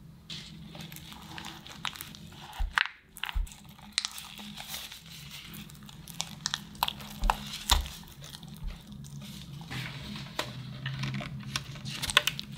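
Silicone spatula stirring soft cream cheese, mascarpone and powdered sugar in a glass bowl: soft squishing with irregular clicks and taps against the glass. Near the end an electric hand mixer's beaters start working the cream, giving fast clattering ticks.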